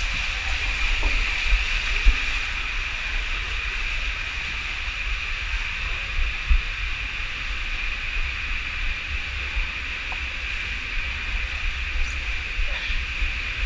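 Water rushing and a steady low rumble as a rider slides down an enclosed tube water slide, with a few short knocks along the way.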